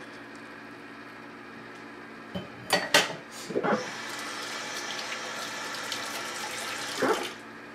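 Kitchen tap running for about four seconds and then shut off with a knock, after a few clinks and knocks of handling just before it is turned on.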